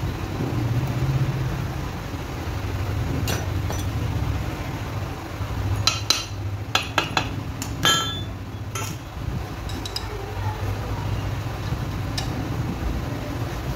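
Sharp metal clinks and taps of a Hero Splendor cylinder barrel being worked down over the piston and onto the crankcase studs, most of them bunched together about halfway through, a few ringing briefly. A steady low hum runs underneath.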